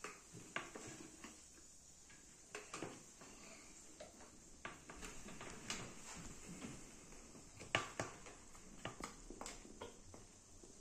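Faint, scattered clicks and taps of small plastic toys and a plastic dropper being handled in a sand-filled tray, a few sharper knocks near the end.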